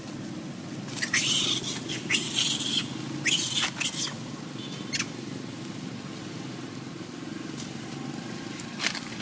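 Long-tailed macaque giving three harsh screeches, one after another, between about one and four seconds in, with a couple of short sharp calls near the end.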